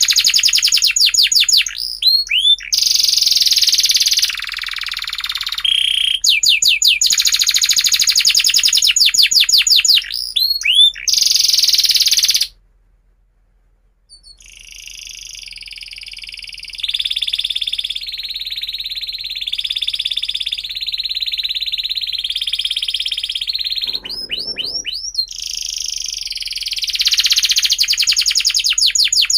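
Domestic canary singing: fast rattling trills, broken by a short pause about twelve seconds in. Then comes a stretch of clear held notes that step up and down in pitch, and the rapid trills return near the end.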